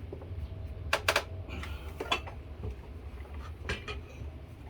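A few light metal clinks and knocks: a quick pair about a second in, then single ones near two and near four seconds, as steel tire irons are handled on a manual tire changer.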